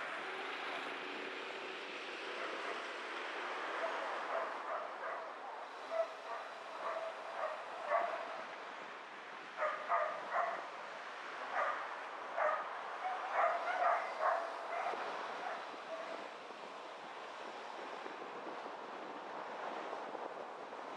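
A dog barking in a run of short, sharp barks over steady road noise from a moving car. The barks start a few seconds in and stop a few seconds before the end.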